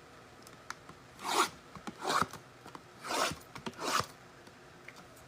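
Sports trading card packs and cards being handled as packs are ripped open: four short swishes about a second apart, with a few small clicks between.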